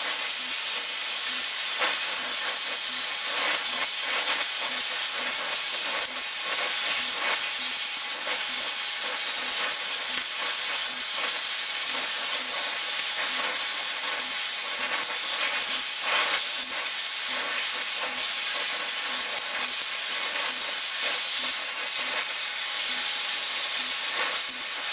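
Harris 43-2 oxy-acetylene torch cutting metal: a steady, loud hiss of the gas jet and flame, with light irregular crackles as sparks and molten slag blow off the work.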